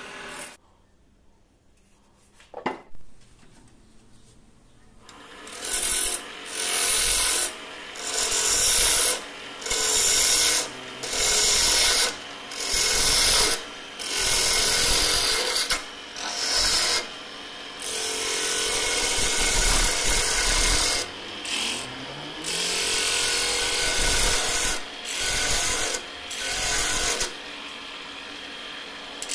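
A gouge cutting hard mastic wood on a spinning lathe in repeated scraping strokes, each about a second long and coming about one every one and a half seconds, with one longer unbroken cut near the middle. The first few seconds are nearly silent before the lathe's running sound comes in.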